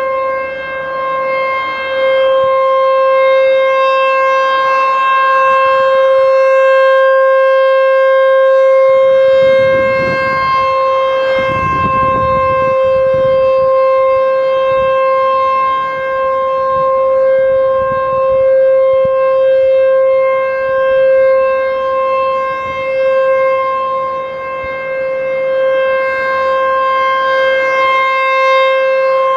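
ASC T-128 electromechanical tornado siren sounding a steady, unwavering alert tone. Its single rotating horn makes the sound swell and fade as it turns toward and away.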